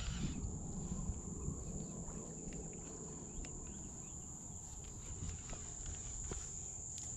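Quiet open-air background on a kayak: a low rumble of wind and water on the microphone under a steady high-pitched whine, with a few faint clicks.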